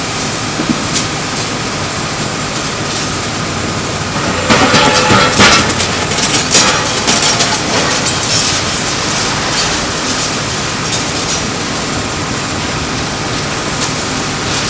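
Bulldozer engine running steadily. A burst of loud crashing and clattering comes about four to eight seconds in.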